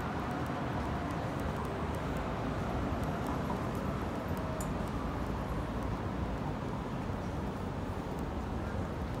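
Steady city street ambience: a low traffic rumble with faint, indistinct voices of passers-by.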